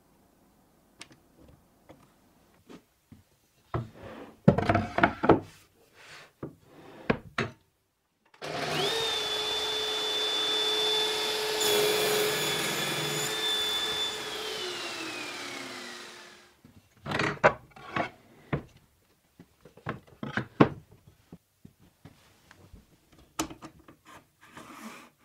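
Circular saw on a vertical panel saw running and cutting through a board for about eight seconds, then spinning down with falling pitch. Before and after the cut, a wooden stop block knocks and scrapes along an aluminium rail and is clamped with a few clicks.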